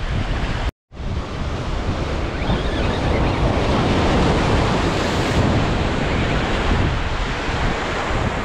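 Ocean surf breaking and washing over jetty rocks, with wind buffeting the microphone. The sound cuts out completely for a moment a little under a second in, then the surf goes on.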